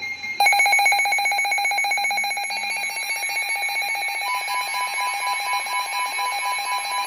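Electronic alert alarm: a loud, rapidly pulsing beep of several high steady tones starts abruptly about half a second in. A second steady tone joins about four seconds in.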